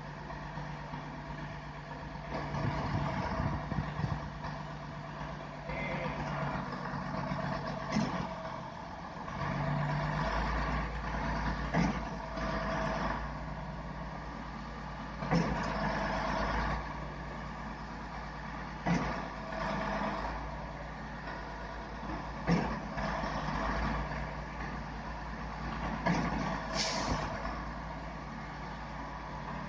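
Diesel engine of a truck-mounted concrete pump running steadily, its low drone rising about a third of the way in. Over it comes a sharp knock roughly every three and a half seconds as the pump cycles, with a short hiss near the end.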